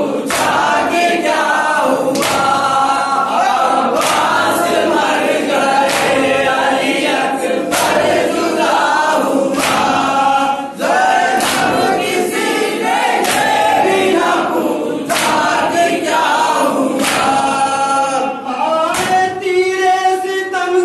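A group of men singing a nauha (Shia lament) in chorus, with sharp slaps of matam, hands striking chests, landing about every second or two.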